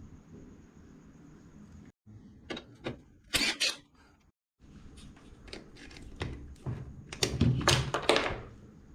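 Knocks, clicks and rattles of hand tools against a motorcycle engine's metal parts during teardown. The louder spells come about three seconds in and again about seven to eight seconds in.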